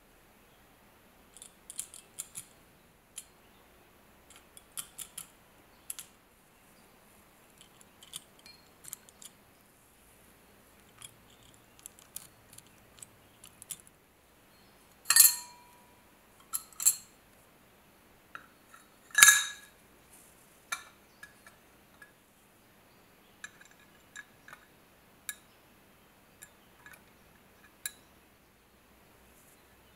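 Tweezers, small tools and small metal parts clicking and clinking against a metal ship compass housing during reassembly: scattered light ticks, and two louder clinks about halfway through, the first leaving a brief ring.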